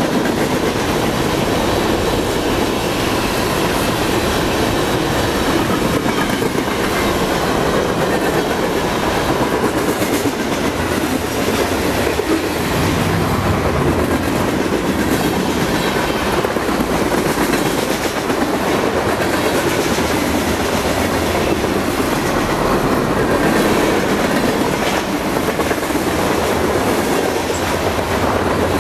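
BNSF manifest freight train's cars (covered hoppers, a gondola and tank cars) rolling past on steel wheels. There is a steady rail rumble with clickety-clack over the rail joints.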